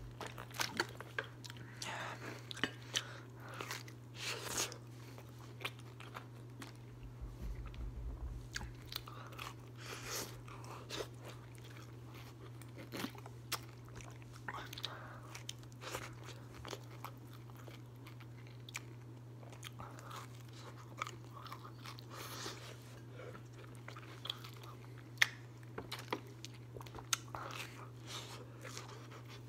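A person eating pizza fast and close up: chewing and biting with irregular crunches and wet mouth clicks, over a steady low hum.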